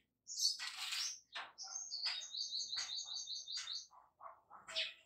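Birds chirping outdoors, with a rapid string of high, evenly repeated chirps about two seconds in and shorter lower notes near the end. A loud, roughly one-second burst of noise comes just before the chirps.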